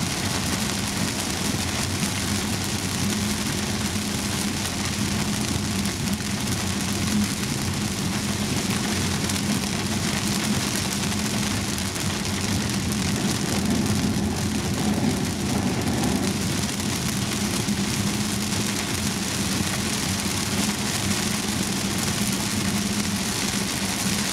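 Heavy rain falling on a moving Volvo S90, heard from inside the cabin as a steady hiss, over a steady low hum of tyres and engine on the wet road.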